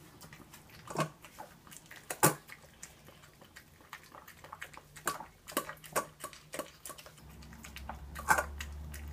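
Small Chihuahua eating soft cottage cheese from a stainless steel bowl: irregular clicks and taps of its teeth and tongue against the metal. A low steady hum comes in near the end.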